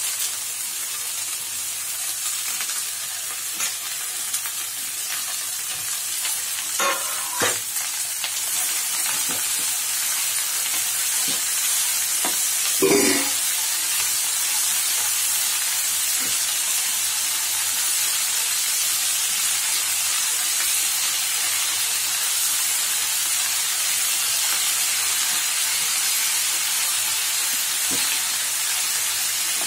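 Chopped mustard greens sizzling in hot oil with browned onion in a kadai, stirred with a wooden spatula. A steady high hiss, with a few short knocks about 7 and 13 seconds in.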